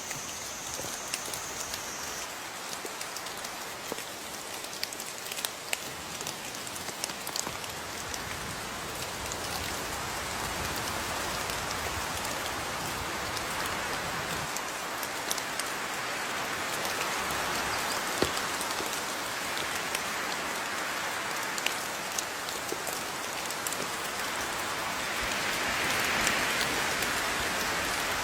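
Steady rain falling, with scattered sharper drop ticks. It grows a little louder over the middle stretch and swells briefly near the end.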